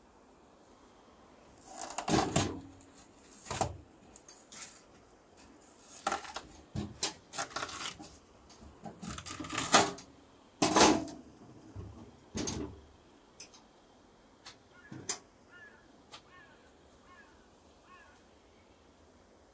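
Knocks, cracks and thumps of a fixed-blade knife cutting through a whole watermelon on a plastic cutting board, with some clatter of metal spoons. The loudest knocks come about two seconds in and again around ten to eleven seconds in, then thin out to a few small clicks.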